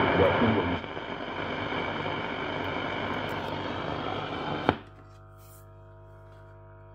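A 1939 Mende Super MS216-W valve radio's loudspeaker being tuned: a voice in heavy static breaks off in under a second, leaving a steady static hiss. A sharp click comes near the middle, after which the set gives a much quieter steady hum with several overtones.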